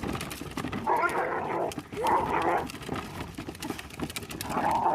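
A dog vocalizing in a few short bursts: about a second in, again around two seconds in, and once more near the end.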